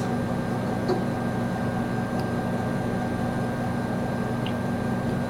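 Steady mechanical hum of room machinery, several low tones and a fainter higher one held unchanged throughout, with a few faint ticks.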